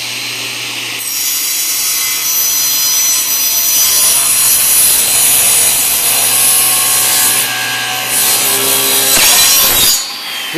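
A 5-horsepower SawStop cabinet table saw ripping 3/4-inch plywood: a steady motor hum and blade whine, louder from about a second in as the blade bites into the wood. It is switched off near the end and the blade's whine falls as it winds down.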